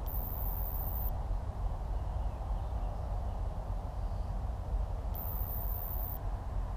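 Steady rushing outdoor noise of river water, with a low rumble of wind on the microphone. A very high-pitched tone sounds twice, each for about a second, near the start and about five seconds in.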